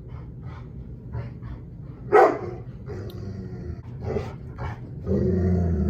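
A dog barking repeatedly in short sharp barks, the loudest about two seconds in. About five seconds in, a steady low mechanical hum starts up.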